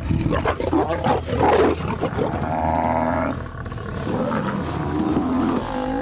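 African lions snarling and growling in a struggle with a Cape buffalo, a dense run of wavering, rasping calls with a rattling growl about halfway through.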